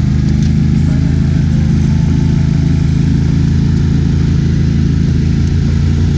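Mud motor on an aluminium jon boat running steadily under way, a low, even engine drone with water rushing along the hull.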